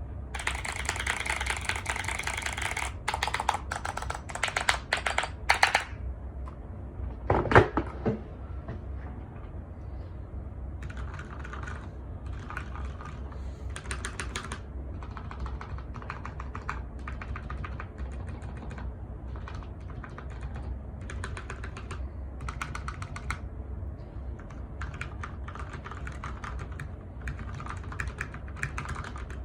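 Typing on a mechanical keyboard fitted with silent Gateron black stems in lubed switch housings, keystrokes coming in bursts. The first six seconds of typing are louder and brighter than the rest. One louder, single sound comes about seven seconds in.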